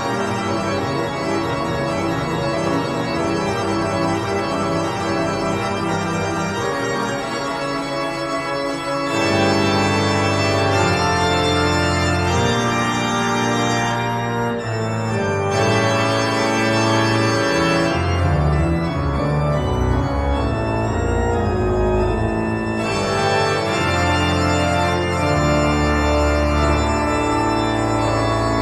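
Organ music playing slow, sustained chords, growing fuller about nine seconds in as a deep bass part joins.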